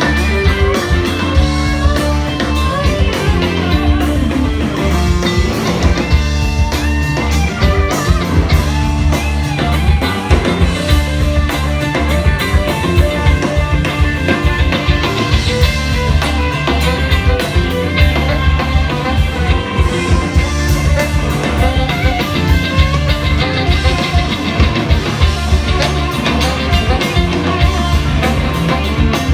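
Live rock band playing a funky indie-rock groove: drum kit keeping a steady beat, with guitar over a heavy low end.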